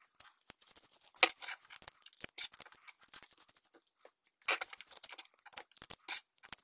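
Bolts, nuts and washers clicking and scraping as they are handled and threaded together by hand, a run of irregular light metallic clicks with a denser flurry about four and a half seconds in.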